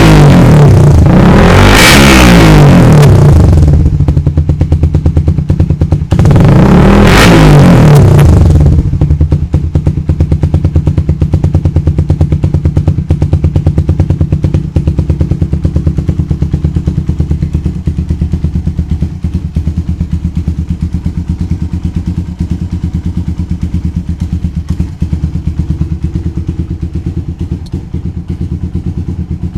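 Suzuki Satria FU 150 fuel-injected single-cylinder four-stroke engine through a Ronin aftermarket exhaust with a small silencer insert. It is revved up and down in the first few seconds and again about seven seconds in, then settles to a steady idle.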